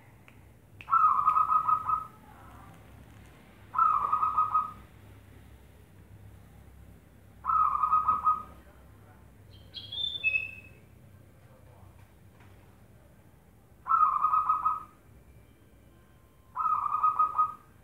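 Zebra dove (perkutut) cooing in full voice: five songs, each a quick run of pulsing coos about a second long, a few seconds apart. A brief higher, falling chirp comes about ten seconds in.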